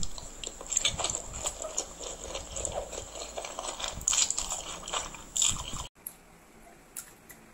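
Close-miked eating of noodles: a mouthful slurped in off a fork, then chewed with wet smacks and clicks. The sounds stop suddenly about six seconds in, leaving only a few faint mouth clicks.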